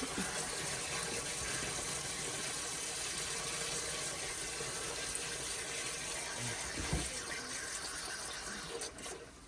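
Water pouring steadily into a sump pit to flush out silt and raise the water level toward the pump's float switch, dying away near the end.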